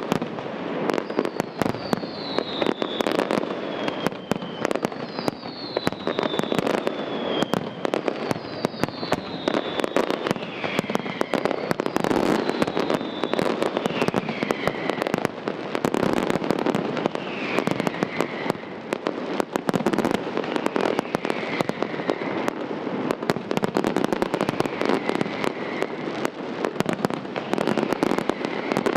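Aerial fireworks display: a dense, unbroken barrage of shell bursts, bangs and crackling. Through it runs a falling whistle that repeats about once a second and sits lower and fainter in the second half.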